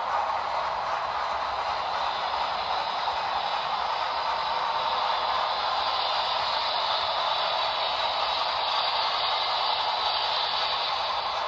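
HO scale model train running along the track, a steady even rolling hiss without distinct beats.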